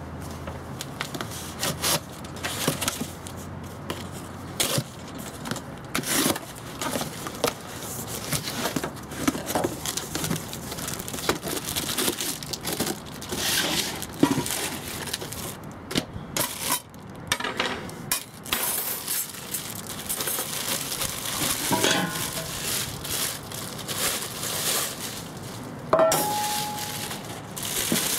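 Hands unpacking a portable bucket charcoal grill: cardboard and packing paper rustling, a plastic bag crinkling, and metal parts such as the wire handle and wire grill grate clinking and knocking. Near the end a metal part clanks and rings briefly.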